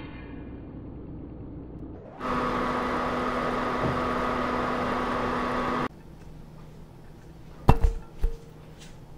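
A loud steady hiss with a low hum runs over the pot of simmering short ribs for about four seconds and cuts off suddenly. Near the end come two sharp knocks as a ceramic serving platter is set down.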